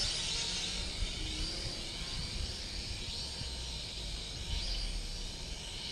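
Small toy quadcopter (the Sharper Image 2-in-1 car drone) flying at a distance: a high buzz from its propellers that swells and fades, over a low rumble.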